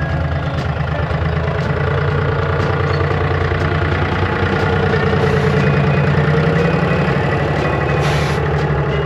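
Car engine idling steadily, its pitch rising a little around the middle and settling again.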